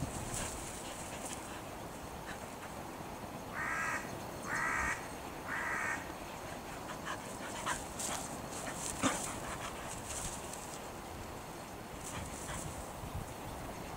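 A crow cawing three times, about a second apart, around four to six seconds in, over faint rustling and small clicks.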